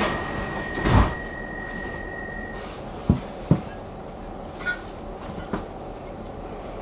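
Metro car sliding doors closing: a steady high warning tone that stops about two and a half seconds in, a heavy thud about a second in, then two sharp knocks and a few lighter clicks.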